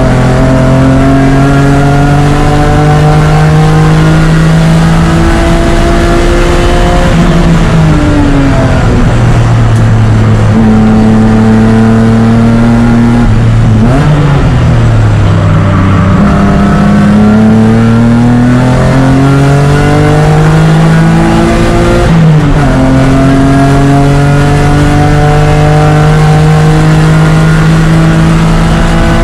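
BMW E36 race car engine at full throttle, heard from inside the car, its pitch climbing steadily through the gears. The note falls away around eight seconds in and again around fourteen seconds as the car slows for corners, and drops sharply at an upshift a little past twenty-two seconds before climbing again.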